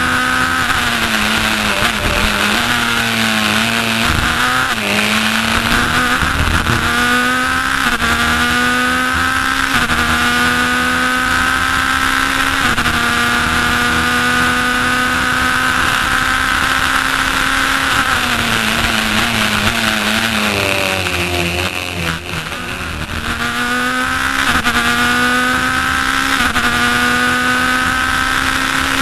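Racing car engine heard from inside the cockpit, under hard acceleration: the revs climb and drop back in quick steps as it shifts up through the gears, then fall away as it brakes and downshifts for corners, most deeply around 20 seconds in. A steady rush of wind and road noise runs under it.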